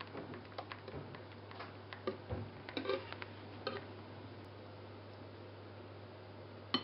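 Small clicks and taps of a silicone spatula and a second bowl against a glass mixing bowl as beaten egg whites are scraped into cake batter, busiest in the first few seconds, with one sharp click near the end. A low steady hum runs underneath.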